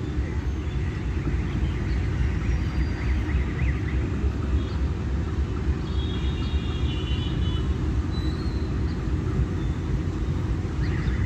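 Pakistan Railways diesel-electric locomotive running as it pulls the train out of the station: a steady low rumble, with a brief high tone about six seconds in.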